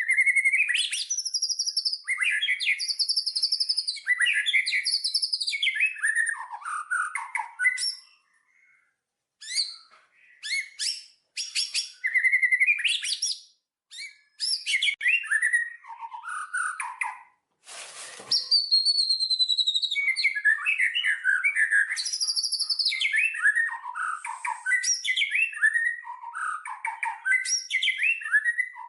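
Small songbirds chirping and singing in quick, varied, high trills and whistled phrases, falling silent for a moment about a third of the way in. A brief crackle cuts through about two-thirds of the way in.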